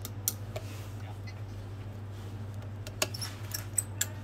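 Small sharp clicks of a precision screwdriver and its metal bits against an opened iPhone 7: one near the start, then a quick cluster in the last second, over a steady low hum.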